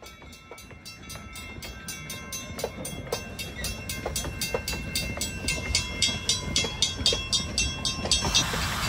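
Grade crossing bell ringing rapidly and steadily while narrow-gauge railroad cars roll past, the wheel clicks over the rail joints and the rumble growing louder. The bell stops near the end as a loud hiss rises.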